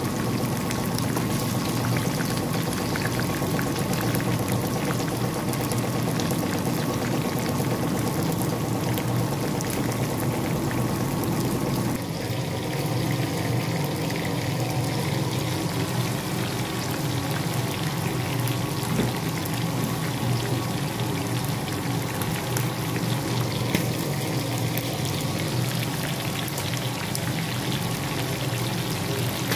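Chicken pieces deep-frying in a pan of hot oil: a steady sizzle with dense crackling that shifts in character about twelve seconds in.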